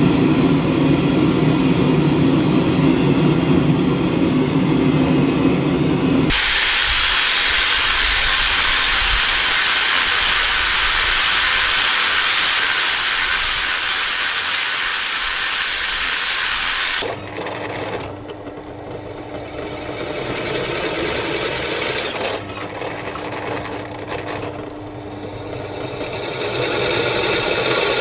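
A steady low rushing noise for about six seconds. It cuts to a Makita angle grinder with a wire wheel brushing steel, a loud steady hiss for about ten seconds. Then a drill press runs and drills into a steel bar with a steady hum and a high whine that swells twice as the bit cuts.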